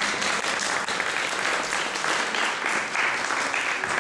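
An audience applauding, the clapping breaking out at once and keeping up at an even level.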